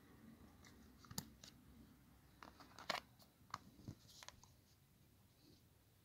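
Faint plastic clicks and snaps from handling a Dreambox RC20 remote control as its battery cover is fitted and the remote is turned over: about seven short, sharp clicks with some scraping over the first four and a half seconds, the loudest about three seconds in.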